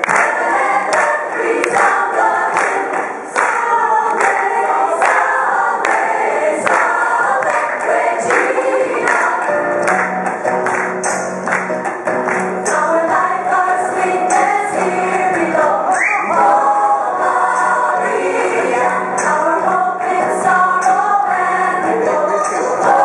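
Gospel-style choir music, many voices singing together, with hand claps on the beat.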